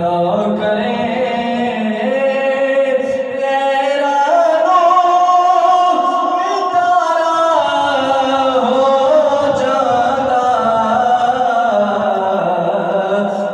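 Male voice singing a long drawn-out melodic passage of a Punjabi devotional naat, holding notes and sliding from pitch to pitch without clear words.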